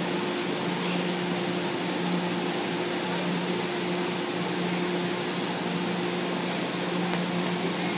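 Steady hum and hiss of a metro train standing at the platform, with a low electrical drone held at one pitch.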